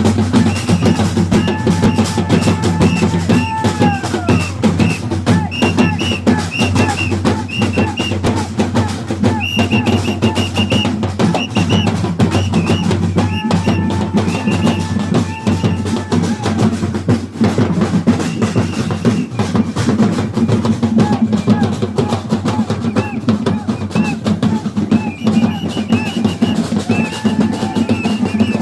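A bumba-meu-boi band plays carnival music: dense, continuous drumming on bass drum and snare, with a melody instrument holding long notes that slide down at their ends about every ten seconds, and high warbling notes throughout.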